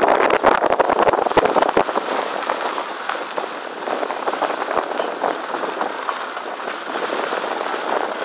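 A vehicle rolling along a dirt track, its tyres crunching over gravel and stones: dense crackling clicks for the first two seconds or so, then a steadier rushing noise.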